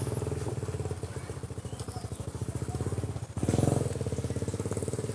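A small engine running with a rapid, even putter, swelling louder for a moment about three and a half seconds in.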